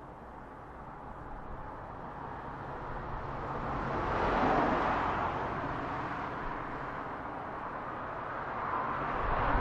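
Road traffic passing close by, its tyre and engine noise swelling to a peak about halfway through and rising again near the end, over a low steady hum.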